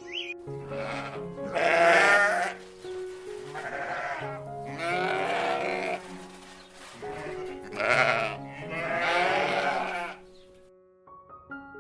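Bleating animal calls, about five in a row, each wavering, over steady background music; the calls stop about ten seconds in, leaving only the music.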